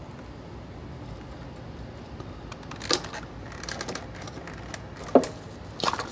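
Gloved hands working a part loose in a Jeep engine bay: light handling noise with a few sharp clicks, about three seconds in, about five seconds in and just before the end.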